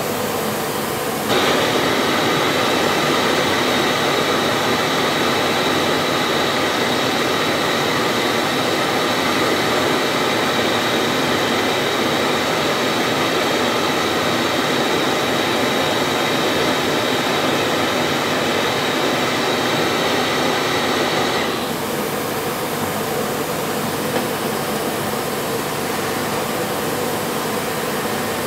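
Gas torch flame running steadily as it heats a joint for silver soldering. About a second in it gets louder, with a faint whistle over the hiss, and about three-quarters of the way through it drops back to a quieter steady hiss.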